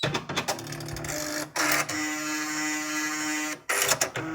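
Nakajima WPT-150 electronic typewriter switched on and running its start-up cycle. A sharp click as the power comes on, then its motors hum steadily among rapid mechanical clicks. The hum cuts off suddenly near the end and starts again briefly.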